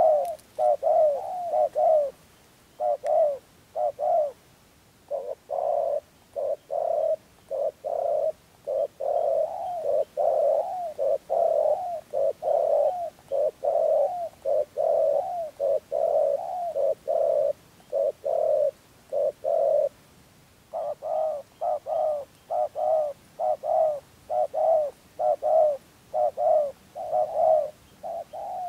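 Spotted dove cooing in quick runs of short, repeated bowing coos, one after another, with a brief pause about twenty seconds in.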